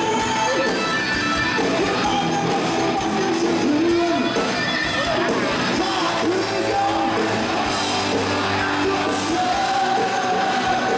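Live rock band: a lead singer sings a sustained, wavering melody into a microphone over amplified electric bass and guitars.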